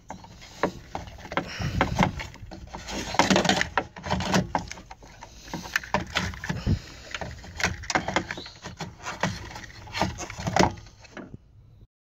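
Mercedes-Benz W210 seat belt retractor and tensioner assembly being worked loose and pulled out of the B-pillar: irregular knocks, clicks and scrapes of the metal unit and belt against the pillar and its wiring.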